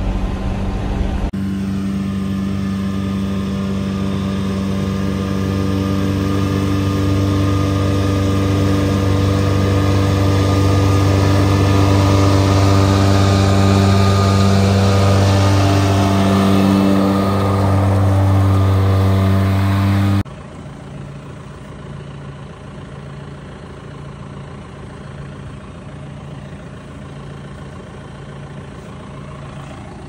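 Massey Ferguson 5S.145 tractor running steadily under load, driving a John Deere 946 MoCo disc mower-conditioner through alfalfa: a loud, even engine drone. About twenty seconds in it cuts abruptly to a quieter, steady engine sound with a faint regular pulse.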